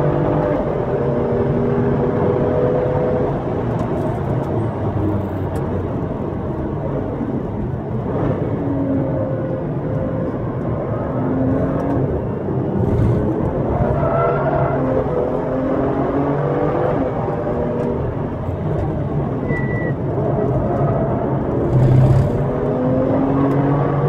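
BMW M2's turbocharged 3.0-litre straight-six heard from inside the cabin on a hard track lap, rising and falling in pitch again and again as it accelerates, shifts and slows for corners, over road and tyre noise. It is louder for a moment near the end.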